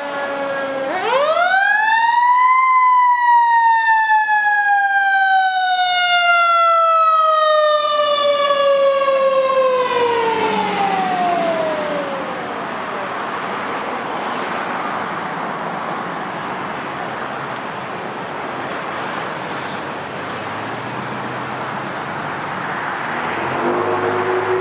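Fire engine siren winding up once to a high pitch, then gliding slowly down and fading out about halfway through. After it comes the steady noise of the fire engine driving away amid traffic, and a low horn sounds near the end.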